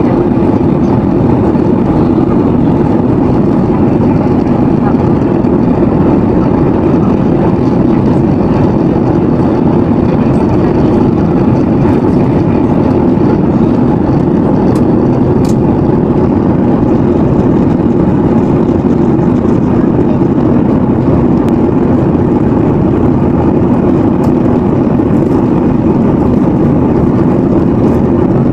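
Steady cabin noise of a Boeing 737-800 airliner: an even, loud engine and airflow rumble with no changes.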